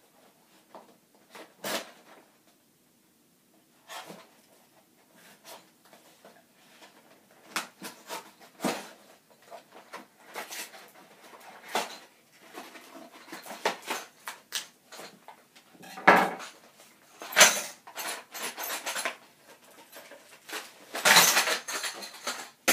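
A shipping package being torn open by hand and its contents handled: a string of scattered rustling, crinkling and tearing sounds, sparse at first, then coming thicker, with the loudest ones about two-thirds of the way through and again near the end.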